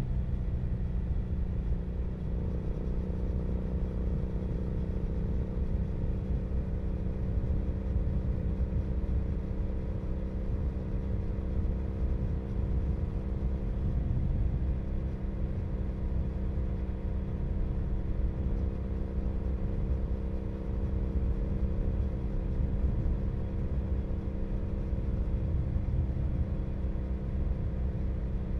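2012 Triumph Bonneville SE's 865 cc parallel-twin engine running through British Customs Predator aftermarket mufflers, miked right at the exhaust, at a steady cruise. The exhaust note holds an even pitch throughout, with no revving or gear changes.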